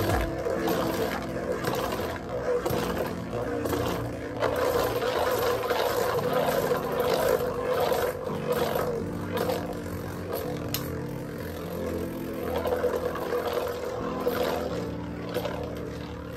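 Two metal Beyblade spinning tops whirring steadily as they spin in a plastic stadium, with repeated short clicks as they touch and clash, over background music.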